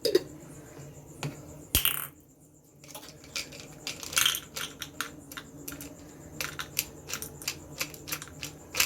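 Small hard pieces of palm sugar candy clinking one after another as they drop into a vessel, several clicks a second, with one sharp knock about two seconds in.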